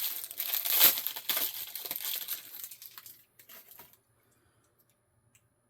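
Packing wrap crinkling and rustling as crystals are unwrapped by hand, a dense crackle with small clicks that thins out and stops after about three to four seconds.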